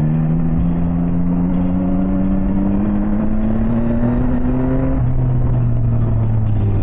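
Yamaha Tracer 9 GT motorcycle's three-cylinder engine pulling under acceleration, its pitch rising steadily for about five seconds, then dropping suddenly at an upshift and holding steady.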